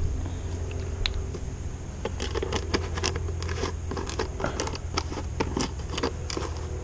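Irregular small clicks, taps and scrapes of hand work on parts during a motorcycle oil change, growing busier about two seconds in, over a steady low hum.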